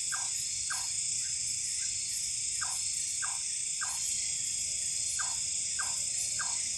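Night chorus of forest insects, a steady dense high trill, with short falling calls repeating in pairs about every second and a half.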